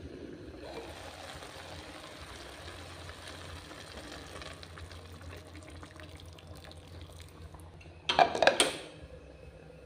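Hot water poured into a pot of braising fish and vegetables over a steady hiss. About eight seconds in, the glass pot lid is set back on with a short clatter, the loudest sound here.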